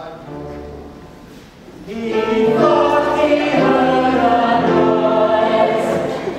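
Operetta chorus singing, soft for the first two seconds and then coming in loudly with many voices in held notes.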